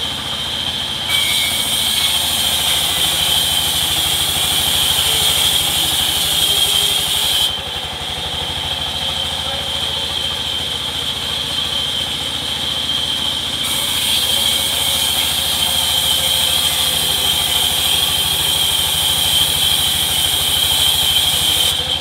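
Sawmill band saw running with a steady high whine, cutting rain tree wood in two passes: the blade's harsh hiss through the wood from about a second in to about seven seconds, and again from about fourteen seconds until just before the end. The saw's drive runs steadily underneath.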